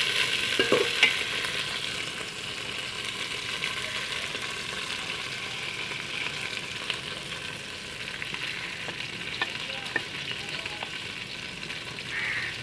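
Cut okra sizzling steadily as it fries in oil in an aluminium pot, with a few light clicks of the metal slotted spoon against the pot.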